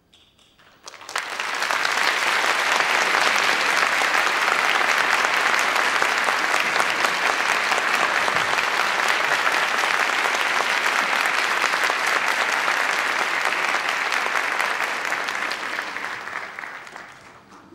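Audience applauding, breaking out about a second in and dense and steady, then dying away near the end.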